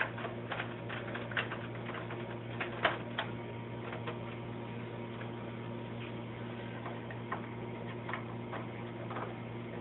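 Light clicks and taps of SATA cables and their plastic connectors being handled and plugged in at a PCIe SATA controller card inside a computer case, frequent for the first few seconds and then sparse, over a steady low hum.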